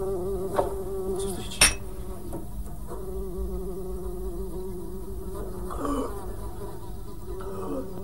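A fly buzzing steadily with a slightly wavering pitch. A single sharp knock comes about a second and a half in.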